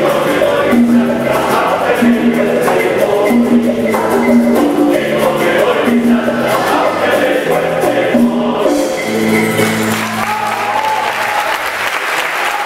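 Acoustic guitars, saxophone, congas and bongos with group vocals playing the closing bars of a son number, ending on a long held chord about nine seconds in, with audience applause rising over the final chord.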